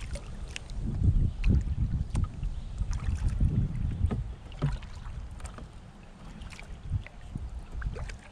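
Canoe paddling on a river with wind gusting on the microphone, plus scattered small clicks from the paddle and water. The wind eases off about halfway through.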